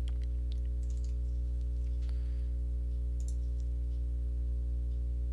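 Computer mouse clicking a few times, faint and spaced out, over a steady low electrical hum on the recording.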